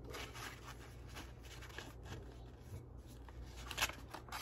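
Faint scratchy brushing: a flat brush spreading matte medium over the back of handmade paper, with the stiff paper rustling as it is handled. A brief sharp crackle near the end as the sheet is lifted.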